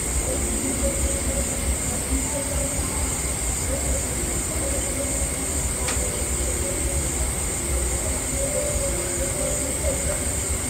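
Steady high-pitched drone of night insects, with a low rumble of wind on the microphone. A single short click comes about six seconds in.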